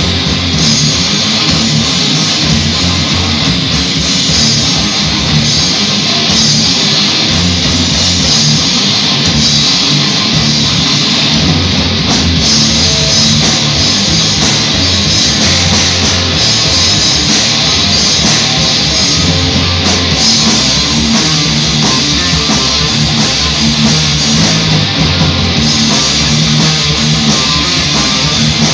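A live rock band playing loud and without a break: electric guitars and bass over a drum kit.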